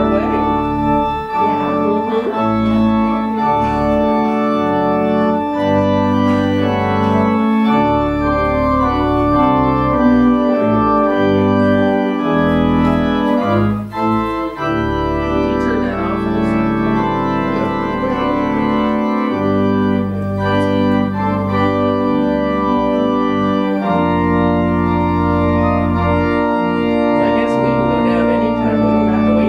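Organ playing slow sustained chords over deep held bass notes, the chords changing every second or two, with a brief break about halfway through.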